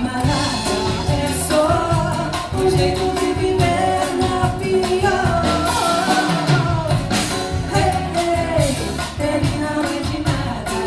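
A band playing a Brazilian popular song, with a lead voice singing over bass, drums and percussion at a steady beat.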